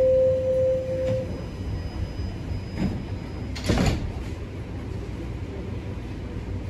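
Toronto Rocket subway car at a station: the last note of the door-closing chime rings for about a second, then the sliding doors shut with a thump near the middle, over the steady hum of the car's equipment.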